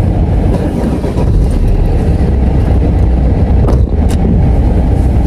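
Loud, steady low rumble of a car's engine and road noise heard inside the cabin, with two faint clicks about four seconds in.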